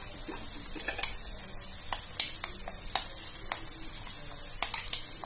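Shallots, garlic and ginger frying in ghee with a steady sizzle, with scattered light clicks of a spoon against a ceramic bowl as spice paste is stirred.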